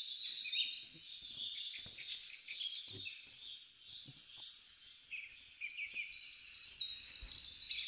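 Several birds chirping and trilling at once, in quick runs of high repeated notes, getting louder about halfway through.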